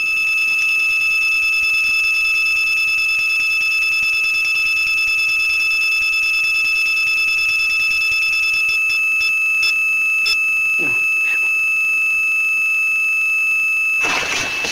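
Cardiac monitor sounding a steady, unbroken flatline tone during a held cardiac resuscitation, the sign that no heartbeat is showing. A short burst of noise comes near the end.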